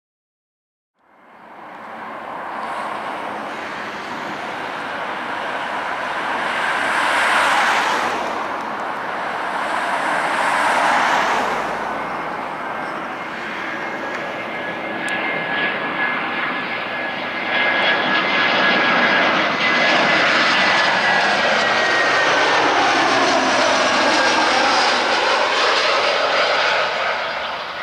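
Airbus A320-214's two CFM56 turbofan engines on final approach: a steady rush with a high whine, starting about a second in and growing louder as the airliner draws near and passes close by, its tone sweeping near the end.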